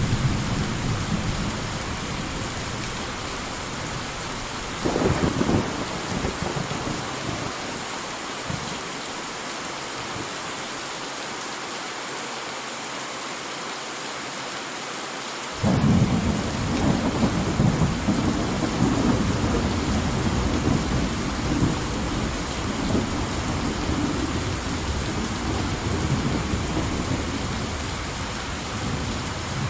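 Thunderstorm: steady rain with thunder. A sharp crack comes about five seconds in, and a long rolling peal breaks suddenly just past the middle, rumbling on in swells almost to the end.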